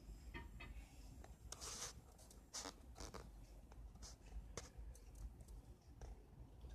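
Near silence: a faint low rumble with scattered soft clicks and rustles at irregular intervals.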